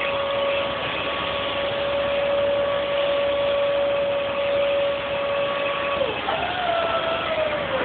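A motor whining steadily at one pitch over a noisy background. About six seconds in, the pitch dips, jumps up, then slowly sinks lower.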